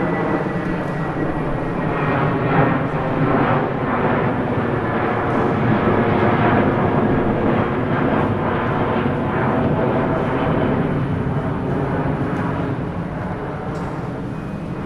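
Airplane engines running loud, a dense rush with a steady hum of engine tones, swelling through the middle and beginning to fade near the end.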